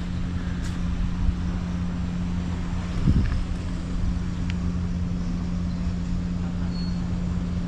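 Steady low mechanical hum over a low rumble, with one short low sound about three seconds in.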